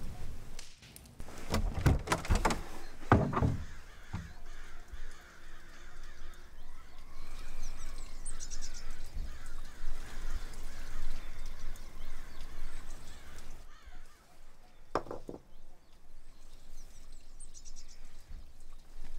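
A quick series of heavy knocks, then outdoor ambience with birds calling, and a single thump about three quarters of the way through.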